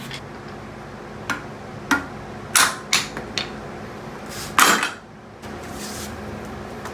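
Mini sledgehammer striking the steel harmonic balancer on a Nissan VQ37VHR crankshaft nose, knocking it loose. About six irregular metallic clanks with a short ring, the two heaviest about two and a half and four and a half seconds in.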